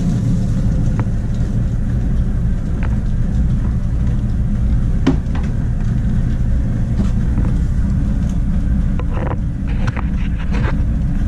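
Maytag DE7600 clothes dryer running with its drum turning on a newly fitted idler tension pulley: a steady low rumble with a few light clicks and no squeal, the sign that the worn pulley behind the old squealing was the fault.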